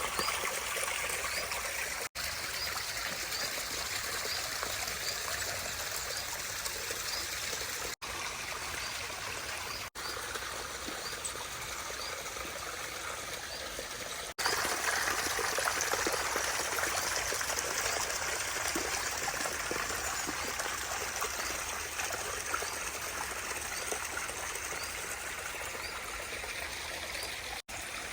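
Water running and trickling over the rocks of a pondless garden stream and waterfall, a steady splashing rush heard in several shots cut together, louder from about halfway through.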